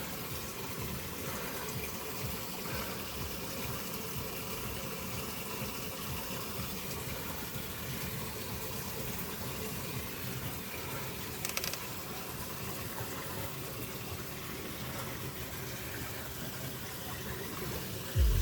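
Steady rushing of water pouring down a small warm-spring waterfall.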